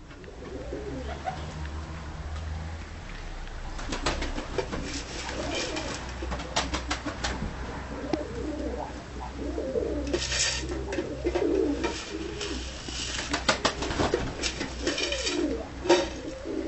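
Dönek (Turkish tumbler) pigeons cooing, several warbling calls overlapping, busiest in the second half. Sharp clicks and rustles come in between.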